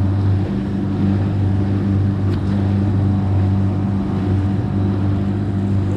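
A boat's engine running steadily, a low even drone.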